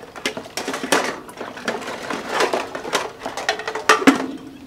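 Clatter of hard household objects being handled: a quick, uneven run of knocks and scrapes, loudest about four seconds in.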